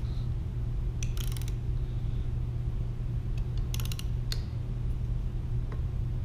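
Ratchet head of a click-type torque wrench clicking in two quick runs, about a second in and near four seconds, as it runs down a connecting rod cap bolt toward its 14 ft-lb setting. A steady low hum sits underneath.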